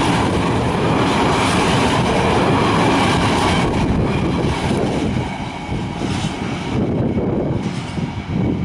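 Empty container flat wagons of a freight train rolling past at speed close by. The noise falls away about five seconds in as the end of the train passes and recedes.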